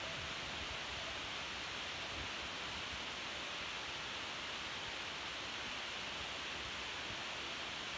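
Steady, even hiss of background room noise with no distinct events.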